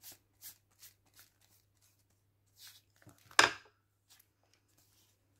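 A glue brush dabbing and stroking across a paper page in quick light strokes, then a brief louder rustle of paper being handled about three and a half seconds in.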